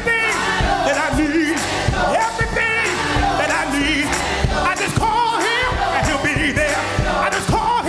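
Live gospel music: a male lead singer and a choir singing together over a steady beat, the held notes wavering with vibrato.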